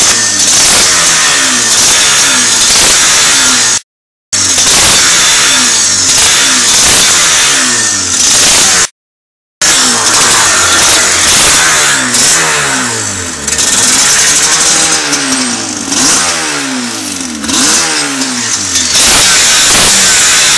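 Yamaha TDR 250's two-stroke parallel-twin engine, through an Arrow exhaust, being revved over and over, its pitch climbing and falling with each blip of the throttle. The sound cuts out completely twice, briefly, in the first half.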